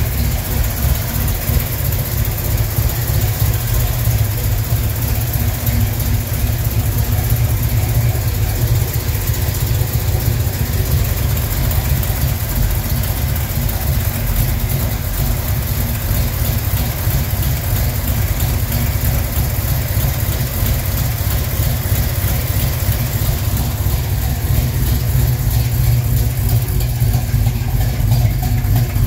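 Chevrolet 396 big-block V8 idling steadily, started up with fresh transmission fluid to check the reinstalled transmission.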